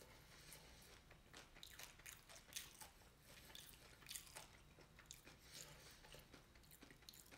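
Faint chewing and crunching of fried catfish nuggets and fries, with small clicks scattered throughout, over a low steady hum.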